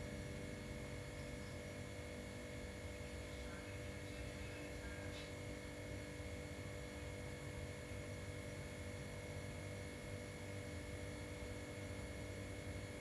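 A steady hum made of several unchanging tones over a low rumble, with a faint brief tick about five seconds in.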